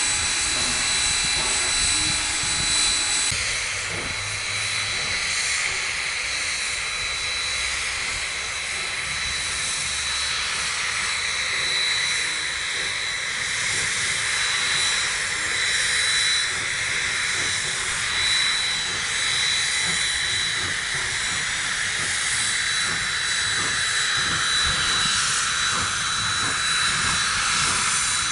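Narrow-gauge steam locomotive moving slowly with its cylinder cocks open, blowing off a steady hiss of steam that grows stronger after about ten seconds.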